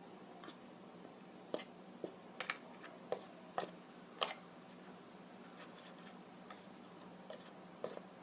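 Irregular light clicks and taps of a spoon against plastic as cornstarch is spooned into a balloon through a cut-off water bottle, the sharpest in the first half and a few fainter ones later.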